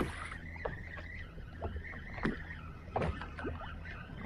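Spinning reel being cranked to retrieve line, a steady whir, with a few short knocks.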